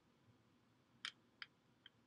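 Screwdriver on the screws of a plastic electrical plug, three faint short clicks about a second in, the first the loudest, as the screws are worked loose.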